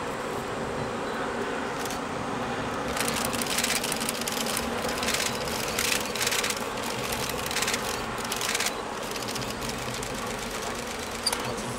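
Two-car KiHa 58-series diesel railcar train running across a steel truss bridge, its engines a steady drone. Bursts of high rattling come and go between about three and seven seconds in.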